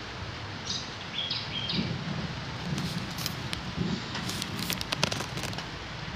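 Steady outdoor storm ambience under a grey sky: an even hiss with soft low rumbles, a bird giving a few short high chirps about a second in, and scattered sharp clicks in the second half.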